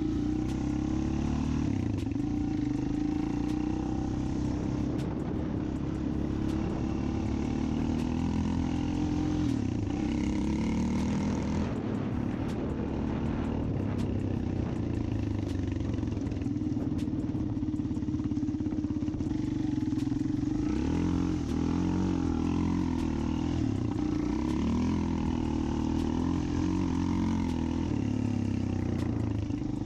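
ATV engine running, its pitch rising and falling with the throttle.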